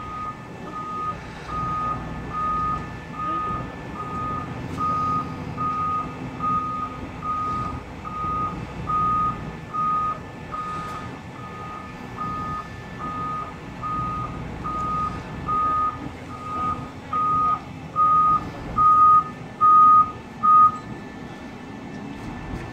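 Warning beeper on a Volvo EW205D material handler, a steady single-pitched beep repeating about one and a half times a second while the hydraulic elevating cab rises, stopping about 21 seconds in; the beeps grow louder over the last few seconds. The diesel engine runs underneath as a low steady hum.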